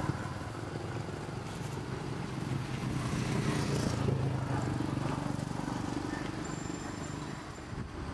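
Low, steady engine rumble of a motor vehicle in the background, swelling about three seconds in and easing off near the end.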